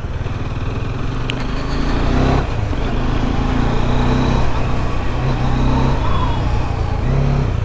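Bajaj Dominar 400's single-cylinder engine running at low road speed, its pitch stepping up and down several times as the throttle is opened and eased, over a steady haze of road noise.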